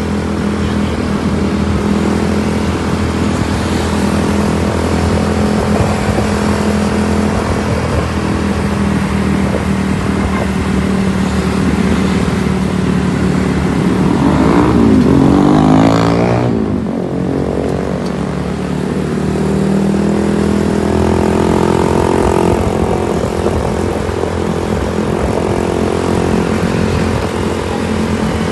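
Motor vehicle engines running steadily in road traffic, with one vehicle passing close about halfway through, its pitch sweeping past and dropping away.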